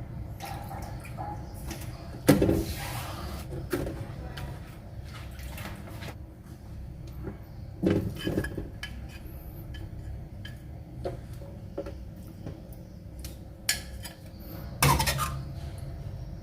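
Dishes and metal utensils clinking and knocking in scattered, irregular strikes, with a few louder clatters.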